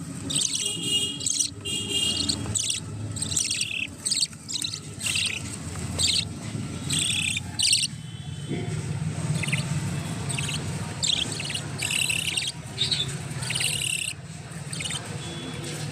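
Budgerigars chirping and chattering in many short, high calls, over a low steady hum.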